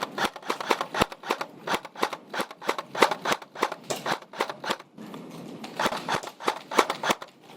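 Airsoft guns firing many sharp shots in quick, irregular strings, with a short pause about five seconds in.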